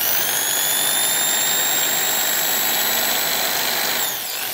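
Defort DID-501-B 500 W corded impact drill running with its trigger pressed fully, a steady high motor whine. About four seconds in, the pitch drops and then wavers up and down.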